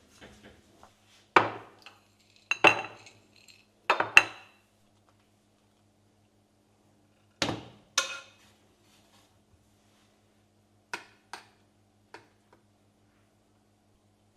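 Dishes and cutlery being handled and set down: a series of sharp clinks and knocks, several in close pairs, spread over the seconds with pauses between, over a faint steady hum.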